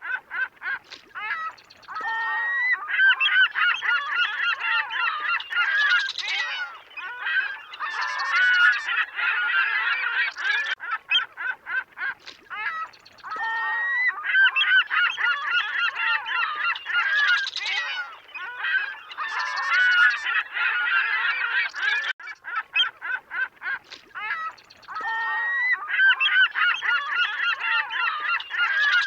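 A flock of waterfowl, likely geese, calling at a lake, with many honking calls overlapping densely and thinning briefly twice.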